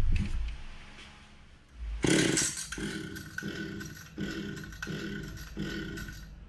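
A thump at the start. Then, from about two seconds in, the Stihl 020 AVP chainsaw's recoil starter is pulled again and again, a little under two pulls a second, and the engine turns over without firing. The owner finds no spark and suspects the ignition coil.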